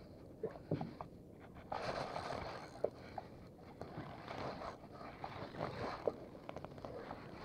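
Clothing rustling and scraping close to the microphone, with scattered light clicks and knocks.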